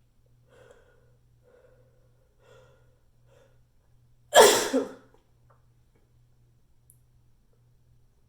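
A person's sneeze in an echoey bathroom: four faint, short catching breaths build up over a few seconds, then one loud, sudden sneeze about four seconds in.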